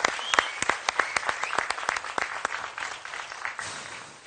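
Applause: many hands clapping irregularly, with some loud single claps standing out, thinning and dying away near the end.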